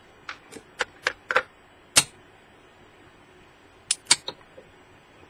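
Small sharp metallic clicks from handling the metal rotor of a ventilation fan motor: a quick run of clicks in the first second and a half, one more at about two seconds, and three close together near the end.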